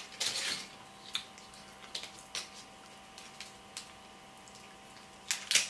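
Scattered short cracks and snips of king crab leg shells being cut with kitchen scissors and pulled apart by hand, with wet squishing sounds. The loudest crack comes near the end.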